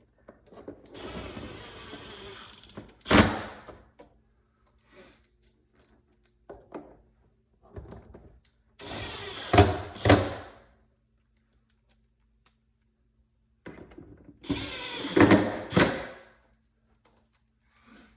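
Power drill/driver running in three short bursts, driving T25 Torx screws into a car door trim panel, with a sharp knock in each burst.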